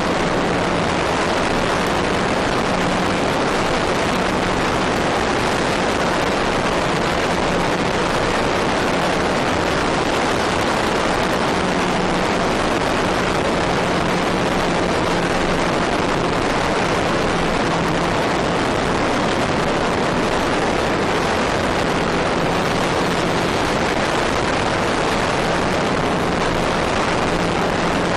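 Trainstar RC plane in flight, heard from its onboard camera: a steady rushing of wind noise with a faint low electric-motor and propeller hum that fades in and out.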